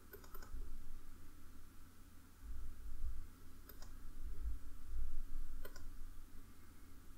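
Computer mouse button clicks: a quick double click near the start, then single clicks about halfway through and near the end. Low rumbling bumps come between them.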